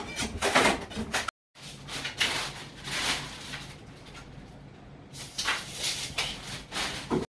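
Scraping and knocking of building work: a bar prying old wall panelling loose, then, after a brief break, a string of short knocks and rattles.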